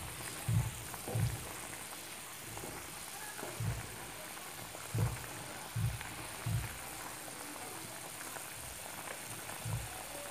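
A pan of raw papaya in water with soda khar boiling hard and bubbling steadily, the alkali making it foam. A wooden spatula stirs it, with dull low thuds now and then.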